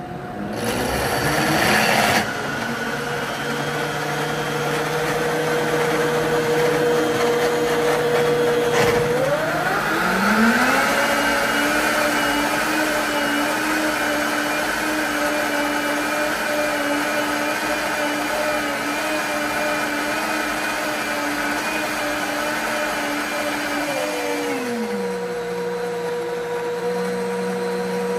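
High-powered blender motor running a cleaning cycle, spinning water and dish soap in the jar. Its pitch rises to a higher speed about nine seconds in, holds, then drops back down about twenty-four seconds in.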